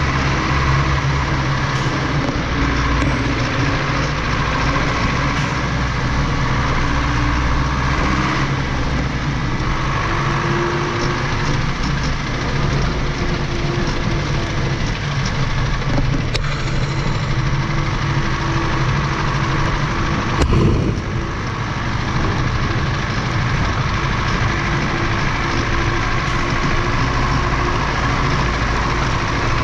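Farm tractor's diesel engine running steadily while the tractor drives along a muddy dirt track, with its tyres rolling through the mud. There is a single knock about twenty seconds in.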